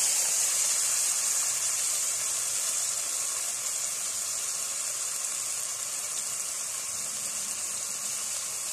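Washed, drained polao rice sizzling in hot oil and ghee in a cooking pot: a steady hiss, loudest as the rice goes in and easing slightly over the following seconds.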